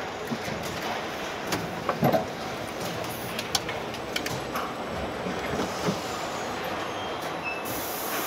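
Car assembly-hall noise: a steady mechanical hum with scattered short clicks and knocks from parts being handled and fitted into a car body, a few close together about two seconds in.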